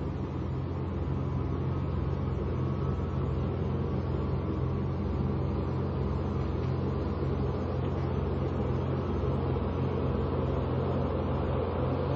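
A steady, low rumbling drone with a deep hum, holding level throughout.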